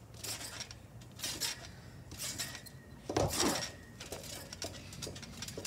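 A child bouncing on a trampoline: the steel springs and mat sound with each bounce, about once a second, the loudest a little past three seconds in.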